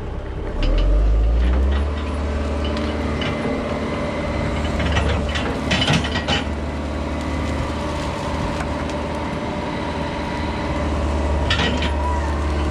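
John Deere 120 excavator's diesel engine revving up about half a second in and running under hydraulic load as the boom and bucket pull back. Several sharp knocks and cracks come around five to six seconds in and again near the end.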